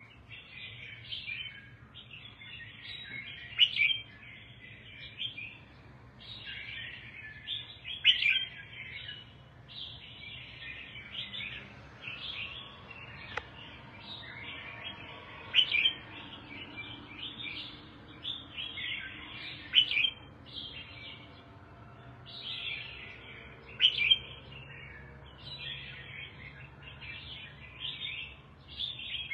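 Red-whiskered bulbul singing a long run of short chattering phrases, with a louder, sharper note about every four seconds.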